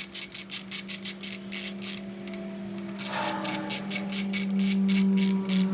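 Ratchet of a torque wrench clicking rapidly, about five or six clicks a second, as it turns the thermostat housing bolts down to 11 foot-pounds; the clicking pauses briefly about halfway through and then resumes. A steady low hum runs underneath.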